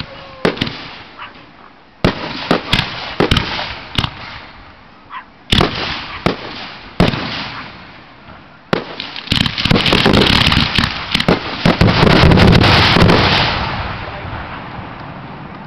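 Aerial firework shells bursting in sharp bangs a second or two apart, each trailing off in an echo. About nine seconds in, the bangs come thick and fast in a dense barrage for about four seconds, then die away.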